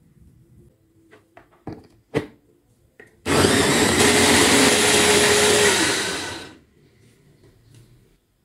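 Electric mini food chopper running for about three seconds, grinding chillies, tomatoes and shallots into a coarse paste, then winding down. Before it, a few plastic clicks and knocks as the blade lid and motor unit are fitted onto the bowl.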